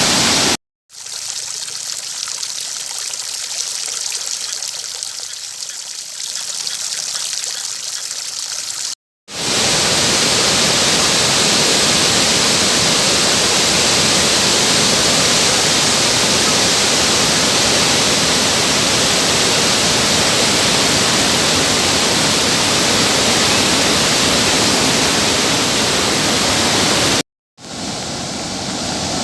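Floodwater rushing steadily in a hiss-like flow. It comes in separate stretches broken by brief cuts, and it is loudest in the long middle stretch.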